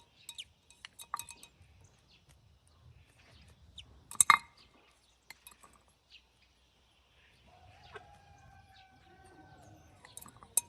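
Scattered taps and clicks of a bird pecking and knocking at a mealworm bottle, with one sharp knock about four seconds in. Later, a distant rooster crows once, a long held call.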